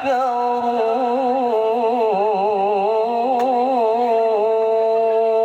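A voice in melodic Quran recitation (tilawah) holding one long drawn-out vowel, its pitch wavering quickly up and down in ornaments, then settling into a steady held note about four seconds in.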